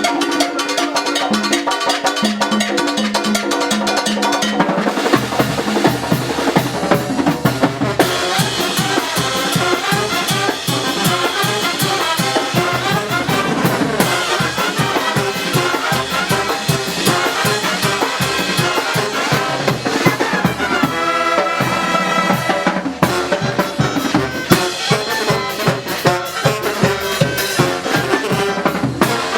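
Live Oaxacan brass band playing a muertero carnival rhythm: trumpets and trombones over drum kit and percussion. The low drums come in fuller about five seconds in.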